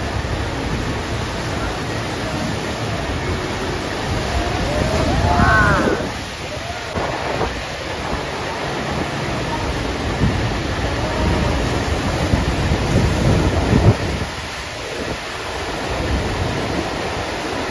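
FlowRider wave simulator's pumped sheet of water rushing steadily across the riding surface, with low wind rumble on the microphone. The rush swells louder about five seconds in, then drops back.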